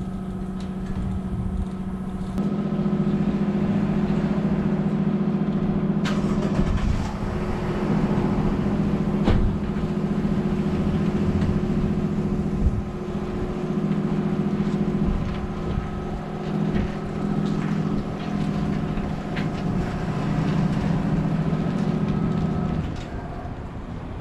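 Steady droning hum of a running motor or engine, with a few sharp clicks and knocks over it. The hum steps up a couple of seconds in and drops away shortly before the end.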